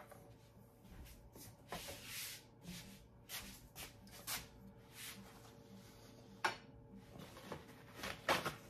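Quiet kitchen handling sounds: soft knocks, clicks and rubs as a metal muffin tin of filled cupcake liners is picked up and moved. A sharper click comes about six and a half seconds in, over a faint steady hum.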